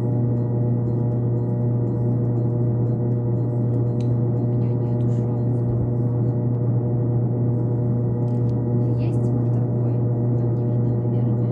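A loud, steady drone of several held tones, strongest low down, that does not change at all, with a few faint ticks above it.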